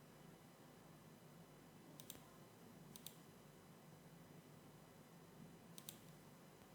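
Computer mouse clicking three times, each click a quick double tick, over faint steady hiss.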